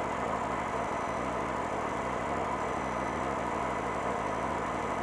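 Can-Am Maverick Max UTV's Rotax V-twin idling steadily while the car waits at the start line, heard from inside the cab.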